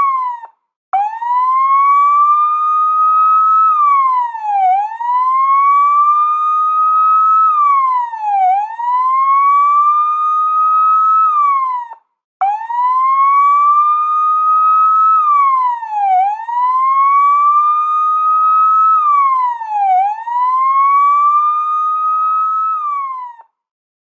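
Police car siren in a wail pattern: the pitch climbs over a few seconds, then drops quickly, repeating about every four seconds. It cuts out briefly twice, once near the start and once about halfway, then stops just before the end.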